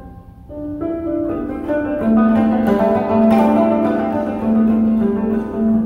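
Jūshichigen (seventeen-string bass koto) plucked in a run of ringing notes, starting about half a second in. About two seconds in it is joined by the long held low tones of a shakuhachi.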